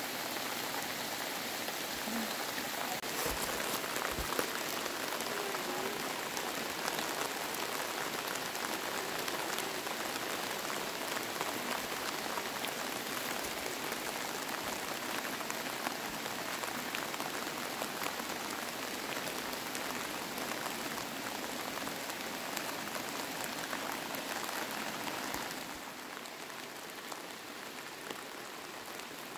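Steady hiss of water, with no clear pitch, dropping suddenly to a lower level about 25 seconds in.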